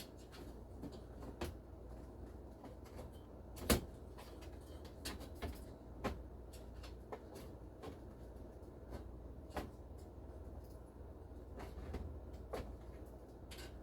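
Scattered clicks and knocks of dash parts and a sheet-metal mounting plate being handled and fitted, the loudest one a sharp knock about four seconds in, over a low steady hum.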